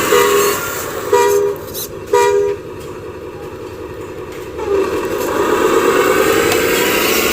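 RC Hino 500 dump truck's horn tooting three short two-tone blasts about a second apart. About five seconds in, a motor whine rises in pitch and then holds steady.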